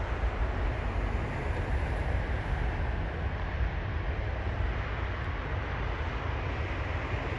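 Distant jet airliner's engines at takeoff thrust during its takeoff roll: a steady noise with a heavy low rumble.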